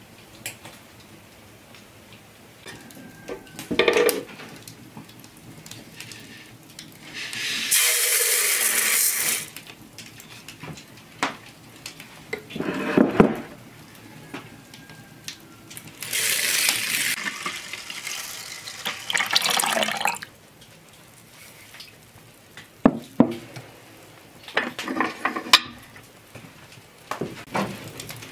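Liquid poured into a pot in two long pours, about a second and a half the first time and some four seconds the second; the second, after the halfway mark, is milk poured from an earthenware jug. Knocks and clinks of pottery and cookware being handled come between the pours.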